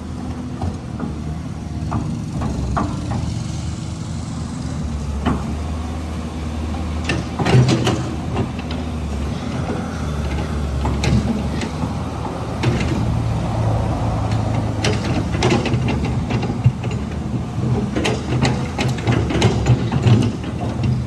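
Caterpillar 320 excavator's diesel engine running, its pitch shifting as the load changes, with scattered sharp clanks and knocks throughout.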